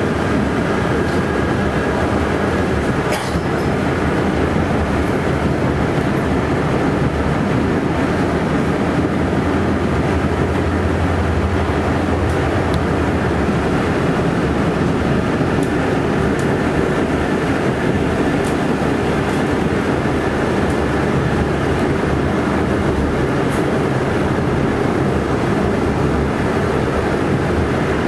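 R68 subway car running at speed, heard from inside the car: a steady rumble of wheels and running gear on the rails, with a few light clicks.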